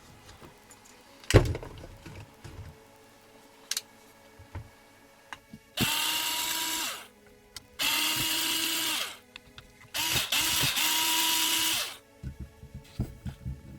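Electric drill running in three bursts of one to two seconds, each spinning up and winding down. A sharp knock about a second in, and light clicks and rattles of small parts being handled.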